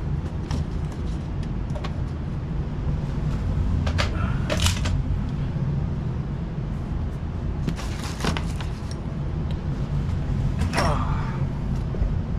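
A steady low machine hum runs throughout, with a series of sharp knocks and clatters at intervals, like metal parts and panels being handled.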